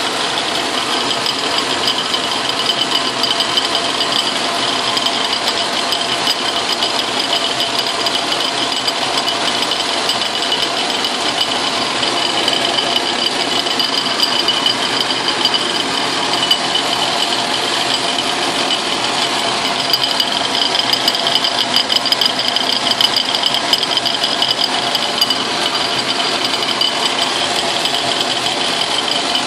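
Logan metal lathe running with an end mill in its spindle collet, milling into a metal tool-post nut: steady machine noise with a high-pitched cutting whine, a little louder about two-thirds of the way through.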